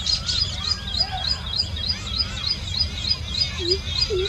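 Small bird chirping over and over, a high chirp about three to four times a second, over a steady low rumble. Near the end a few low, dipping notes come in, about two a second.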